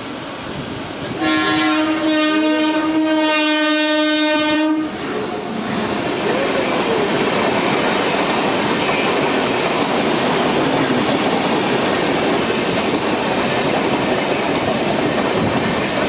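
WAP7 electric locomotive's horn sounding one long blast of about three and a half seconds, a weird-sounding honk. It is followed by LHB passenger coaches rushing past close by with a steady clatter of wheels on rail.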